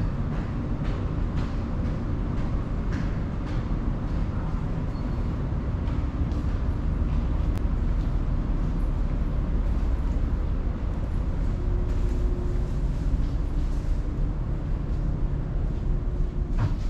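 Steady low rumble of a vehicle's engine and running gear while under way, with a faint hum, and a short clatter near the end.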